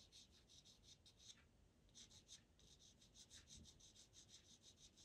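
Faint sound of a black pastel pencil stroking Pastelmat paper in rapid short strokes, about five a second, with a brief pause about a second and a half in.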